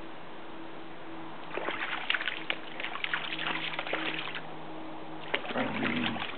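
A dog wading into a shallow creek, its legs splashing and sloshing through the water in two spells, from about a second and a half in and again near the end.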